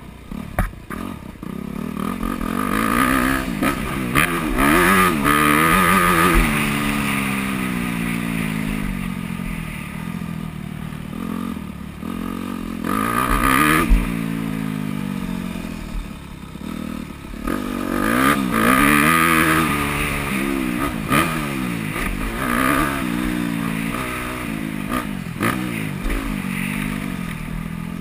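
2009 Yamaha YZ250F's four-stroke single-cylinder engine being ridden hard, its pitch rising and falling again and again as the throttle is opened and shut through the gears. Rattles from the bike run under it, with a sharp knock about fourteen seconds in.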